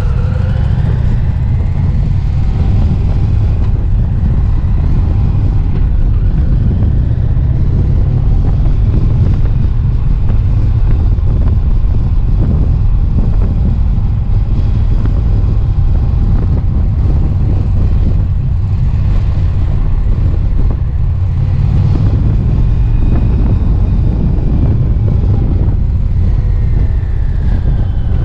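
Motorcycle riding at cruising speed: heavy wind rush on the bike-mounted microphone over the engine running underneath, its pitch shifting a little now and then.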